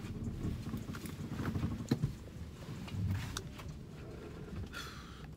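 Low rumble inside a car cabin with scattered light knocks and clicks, a sharper knock about two seconds in, and a brief high-pitched sound near the end.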